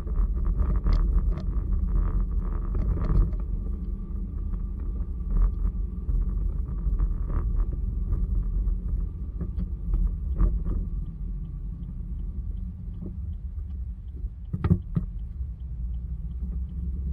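Steady low rumble of a moving vehicle heard from inside, with scattered light knocks and clicks.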